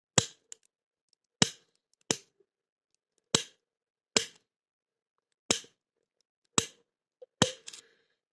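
Homemade bicycle-spoke snapper (snap gun) striking the pins of a cast-zinc padlock under tension: eight sharp metallic snaps, roughly one a second, with a short ring after some. The lock does not open.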